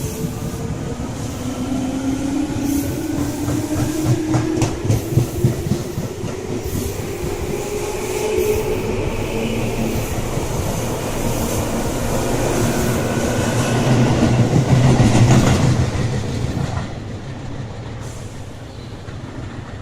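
Tobu 10030 series electric train running past, its wheels clacking over rail joints and its motors whining with a slowly rising pitch. It grows loudest about fifteen seconds in, then fades away.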